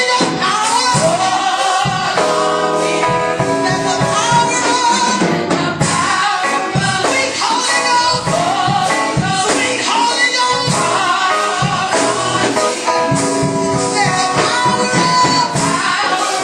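A group of women singing gospel music into microphones, over accompaniment with a steady beat.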